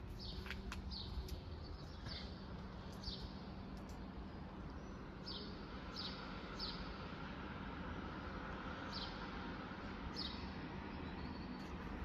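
Swallows calling as they fly overhead: about a dozen short, high calls that slide downward, spaced unevenly, over a steady low city hum.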